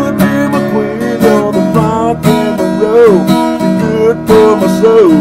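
Acoustic guitar strummed in a steady rhythm, with a man singing along over it.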